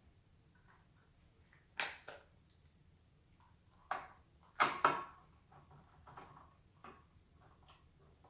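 Scattered sharp clicks and knocks of small parts and tools being handled during a scooter repair, the loudest a quick pair just past the middle.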